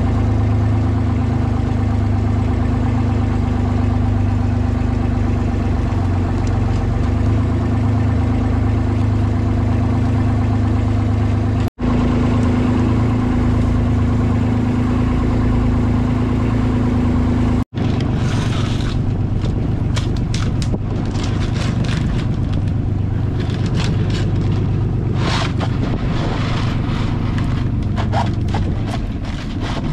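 A fishing boat's engine running steadily at a constant speed, with a brief dropout twice. From a little over halfway through, scattered knocks and clatter sound over the engine.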